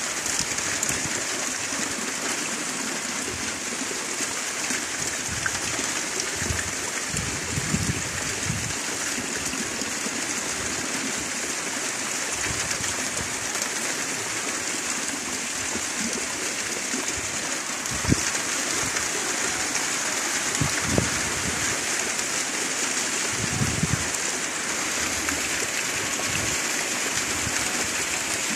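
Rain falling steadily as an even hiss, with a few brief low thumps, the sharpest about 18 seconds in.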